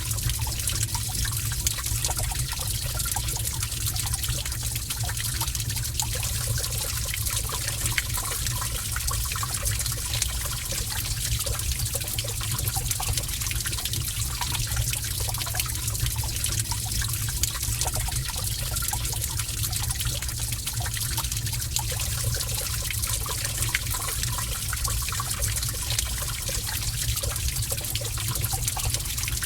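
Water trickling and dripping steadily inside a cave, many small splashes over a low, steady rumble.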